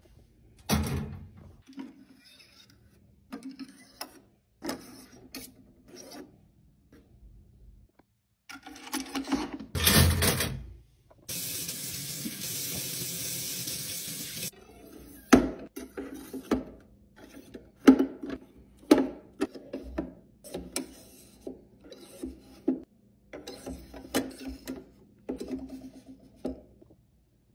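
Steel kitchen knives knocking and scraping on a sink's wire grid, with a loud clatter about ten seconds in, then tap water running onto them for about three seconds. After that comes a run of sharp scrapes and clicks as knives are slid one by one into the slots of a stainless knife block.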